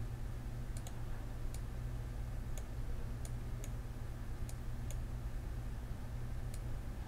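Faint, irregular clicks from a computer mouse and keyboard, about nine spread unevenly, over a steady low hum.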